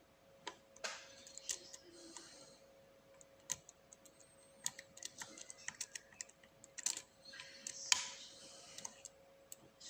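Irregular small metallic clicks and ticks of a lock pick and tension tool working the pin stack of an Abus 7240 padlock, with a faint steady hum underneath.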